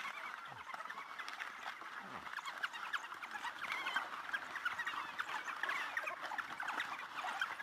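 A pack of African wild dogs giving their high-pitched, bird-like twittering calls: many short overlapping chirps and squeaks with no pause.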